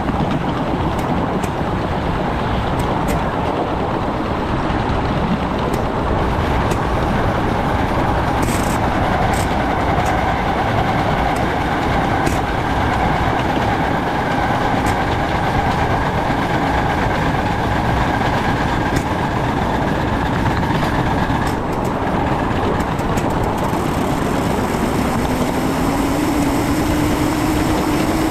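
Ride-on scale live-steam 2-6-0 locomotive working upgrade: a steady rush of running noise from its exhaust and wheels on the rails, with scattered sharp clicks. A low tone rises near the end.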